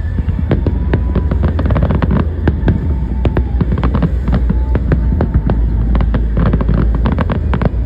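Aerial fireworks going off: rapid, dense crackling and popping from many small bursts over a steady low rumble.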